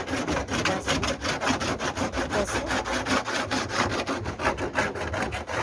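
Fast, even rasping strokes, about eight a second, like a tool being worked back and forth across a surface.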